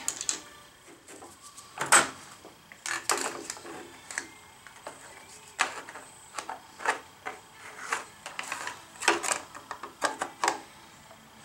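Irregular metal clicks and knocks as a long metal angle chip guard is handled and set in place against a lathe's cross slide, with the sharpest knock about two seconds in.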